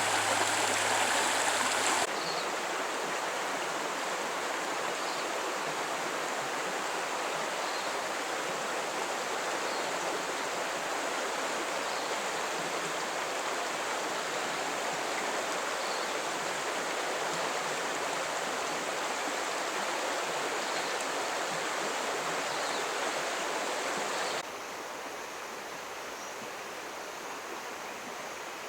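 Steady rushing of a river's flowing water. Its level drops abruptly about two seconds in and again near the end.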